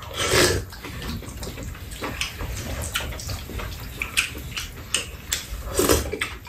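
Soup being slurped from spoons, loudest twice: about half a second in and again near the end. Small clicks of spoons and chopsticks against bowls and eating sounds fill the gaps.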